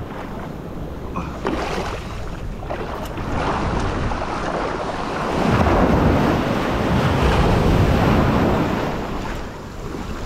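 Ocean surf washing in around a wader in shallow water, with wind buffeting the microphone. A wave sweeps in about halfway through and is loudest for a few seconds before easing off near the end.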